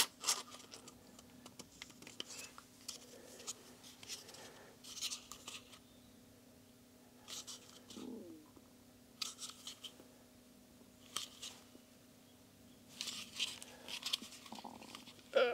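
Small workshop handling noises as oil is drawn off the top of a motorcycle piston: a sharp click at the start, then scattered short scrapes, clicks and rustles, over a faint steady hum.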